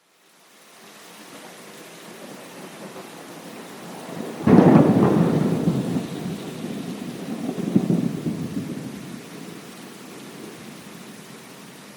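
Thunderstorm: steady rain fades in, then a sudden thunderclap about four seconds in gives way to a long rolling rumble that swells again briefly and dies away under the rain.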